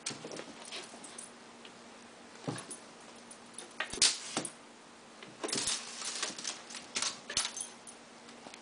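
A Pembroke Welsh corgi and a kitten jumping and pawing at a feather wand toy: irregular scuffles, thumps and light jingling clicks. The loudest is a sharp knock about four seconds in, followed by a busy run of clicks and rustles.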